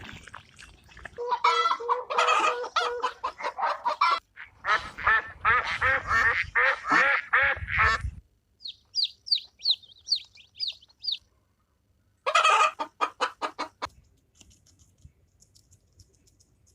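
Domestic fowl calling: two runs of rapid, repeated pitched calls, then about ten high, quick falling chirps, then another short burst of calls.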